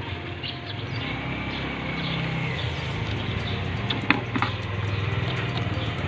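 An engine running steadily at idle, with a few sharp clicks about four seconds in.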